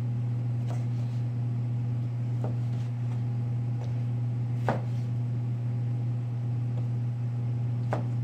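Chef's knife slicing navel oranges into wedges, striking the cutting board with a few short knocks, the sharpest about halfway through. Under it runs a steady low hum of kitchen equipment.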